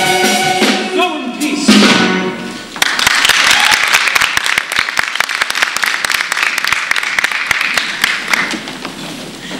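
A stage musical's choir and cast, with accompaniment, hold the closing chord of a church number. It cuts off about three seconds in and gives way to audience applause, a dense run of claps.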